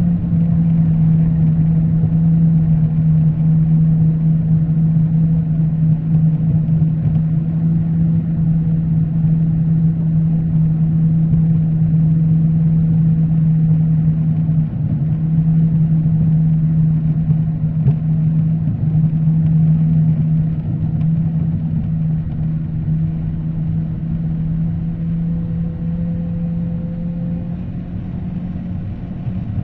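Jet ski engine heard from inside its engine compartment while the craft runs through the water: a loud, steady drone at an even pitch that eases off somewhat over the last several seconds.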